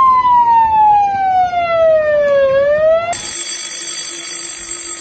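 Police siren wailing in a slow sweep, falling in pitch and then starting to rise again, cut off about three seconds in. A steady electric bell takes its place.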